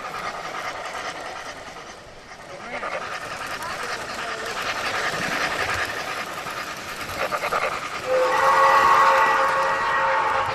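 A train running with a rattling clatter, then its horn sounding one long, steady chord for about two and a half seconds near the end.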